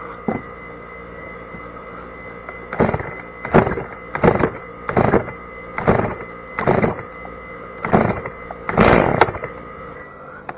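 Stihl chainsaw being pull-started: about nine quick yanks on the recoil starter cord, each a short rasping burst of the engine turning over, without it catching yet.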